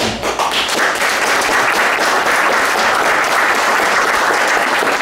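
Audience applauding: many people clapping at a steady, dense level.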